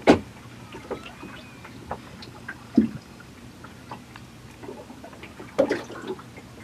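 Water lapping against the hull of a small anchored boat, with a few sharp slaps or knocks against the hull. The loudest comes right at the start, with others about three seconds in and near the end.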